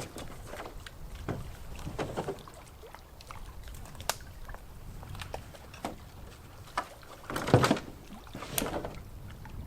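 A canoe being paddled: irregular swishing paddle strokes in the water, the loudest about three-quarters of the way through, with a few sharp knocks.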